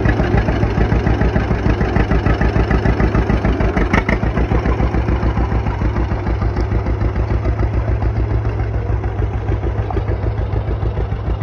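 1942 John Deere A's two-cylinder engine running with an even, regular popping beat as the tractor drives off.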